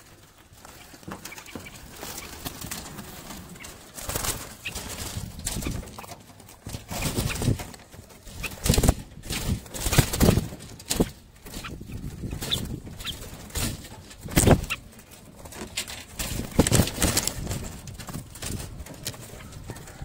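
Caged birds flapping and scuffling against wire mesh, in a string of irregular rustling bursts.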